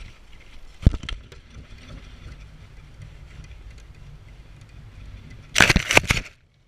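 Air Hogs foam RC airplane in flight, heard from a GoPro mounted on it: a steady low hum of its small electric motor and propeller with rushing air, after a sharp knock about a second in. Near the end a loud jumbled clatter as the plane crashes into the grass, then the sound cuts off.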